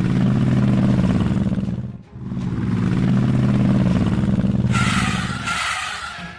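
Vehicle engine running in two long swells, each rising and then falling away, with a brief pause about two seconds in. A short hiss comes near the end.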